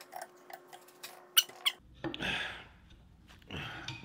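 A steel rod worked against the cast-iron body of a bench vise as a makeshift punch to drive out a stuck pin. It makes a run of light metallic clicks and taps, two of them sharp about a second and a half in, then two longer, louder noises. The scrap rod bends instead of moving the pin.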